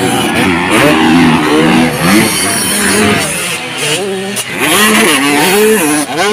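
Several dirt bike engines revving, their pitch rising and falling again and again as the bikes accelerate and back off.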